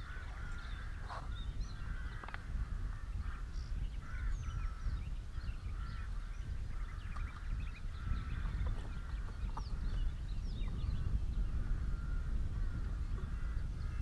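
Birds calling, many short chirps and squeaky glides overlapping, over a steady low wind rumble on the microphone.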